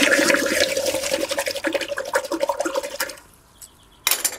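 A hot, freshly forged iron arrowhead is quenched in a water trough. It gives a loud sizzling hiss, full of crackles and with a steady tone under it, that dies away after about three seconds. A short sharp knock comes near the end.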